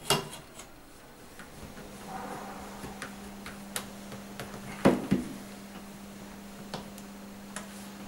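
Scattered light clicks and knocks of plastic pipes and clips being handled and refitted at the base of a dishwasher, the loudest a knock about five seconds in. A faint steady hum comes in about two seconds in.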